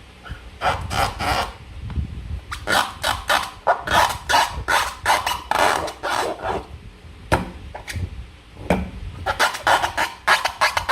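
Slime and rubber balloons being handled and squeezed: a busy run of short rubbing, scraping strokes in quick clusters, with short pauses between them.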